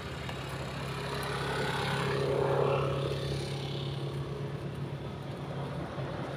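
A motor vehicle engine running with a steady low hum, while a passing vehicle swells in loudness to a peak about two and a half seconds in and then fades.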